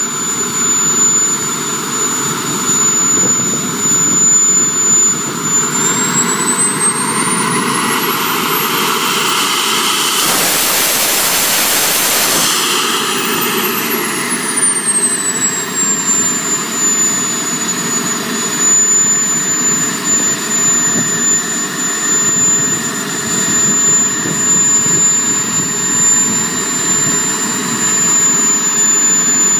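Jet Central Rhino model jet turbine in a Comp ARF Typhoon running on the ground with a high whine, spooling up into a short burst of high thrust near the middle, then winding back down to idle.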